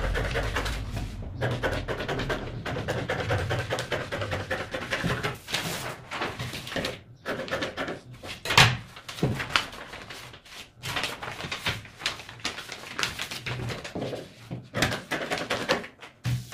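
Scissors cutting out the back piece of a paper trouser pattern: irregular snips and paper rustling, the sharpest crackle about eight and a half seconds in.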